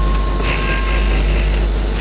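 Steady low rumble and hiss of a large legislative chamber's room tone, picked up by the desk microphones while the senators stand in a minute's silence, with a faint brief rustle about half a second in.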